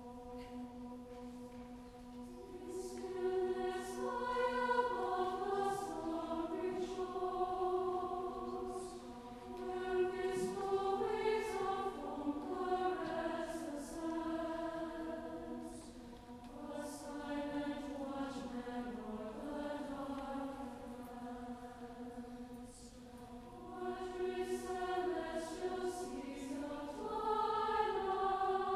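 Mixed choir of men's and women's voices singing slow, sustained chords in phrases that swell and fall back.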